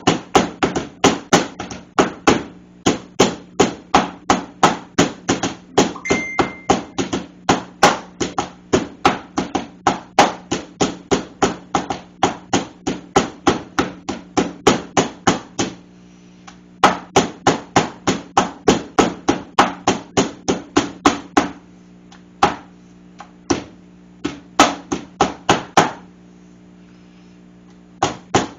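Meat tenderizer mallet pounding a pork loin on a cutting board to cube it into cube steak: rapid, loud, repeated whacks at about three a second. There are brief pauses about two-thirds of the way through and near the end, over a faint steady low hum.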